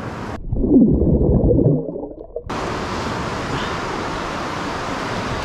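A loud, muffled stretch of low sound with gliding tones, about two seconds long, that starts and cuts off suddenly. It is followed by a steady hiss of surf and wind on the microphone at a rocky sea shore.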